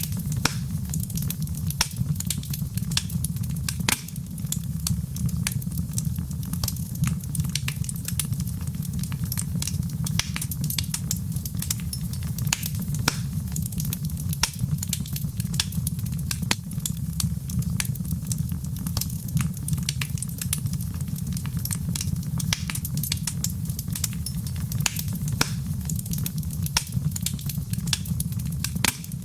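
Wood fire in a fireplace crackling: many sharp, irregular pops and snaps over a steady low rumble of the burning fire.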